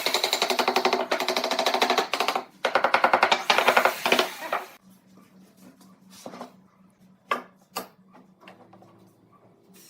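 A small machine running with a fast, even stutter of about a dozen strokes a second, in two spells over the first four seconds or so, then stopping; a few scattered light clicks and taps follow.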